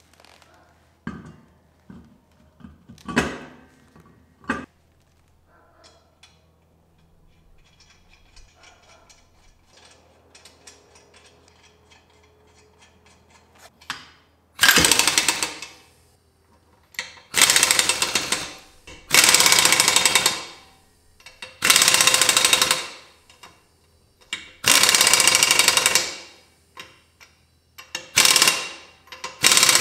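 Kobalt air impact wrench hammering the lug nuts tight on a car wheel in about seven loud bursts of a second or two each, starting about halfway in. Before it come a few light knocks and clinks as the wheel is handled.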